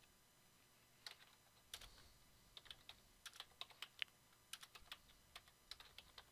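Faint computer keyboard typing. A few isolated key clicks come first, then a quicker run of keystrokes from about two and a half seconds in.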